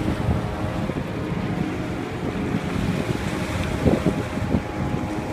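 Wind buffeting the microphone over choppy harbour water, with a steady boat engine hum underneath.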